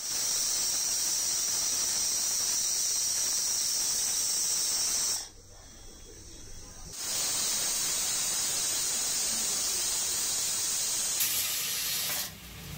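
Aluminium pressure cooker's weighted valve whistling, steam hissing out at a high pitch as the cooker reaches pressure. Two long releases of about five seconds each, with a short break about five seconds in.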